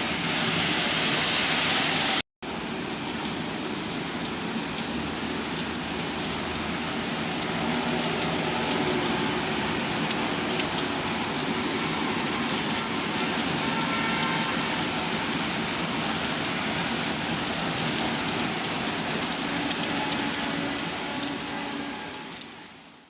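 Steady rain falling: an even hiss with many small drop ticks. It cuts out for a moment about two seconds in, and fades out at the very end.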